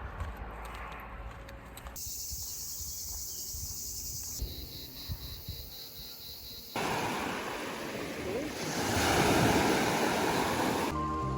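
Outdoor rushing noise cut together from several short takes, changing abruptly about two, four and a half and seven seconds in, and loudest in the last few seconds.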